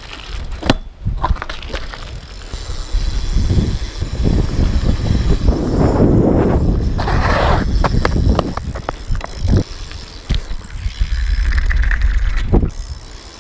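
Mini BMX bike rolling along an asphalt path: a steady rumble of tyres and riding noise, with a few sharp knocks along the way.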